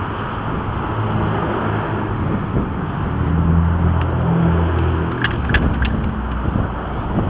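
A motor vehicle's engine running, loudest around the middle, over a steady rushing noise, with a few short clicks near the end.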